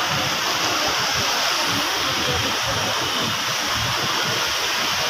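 A steady, even rushing noise at a constant level, with no distinct events.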